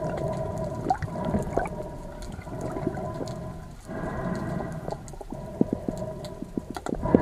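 Underwater sound: a steady humming drone that swells about four seconds in, with scattered clicks and crackles.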